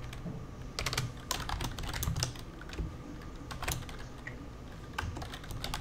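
Typing on a computer keyboard: quick, irregular key clicks in short runs with brief pauses between them.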